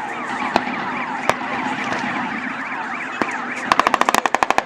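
Blank gunfire: a few scattered single shots, then a rapid machine-gun burst near the end. Underneath runs a steady siren-like sound made of quick falling sweeps, about four or five a second.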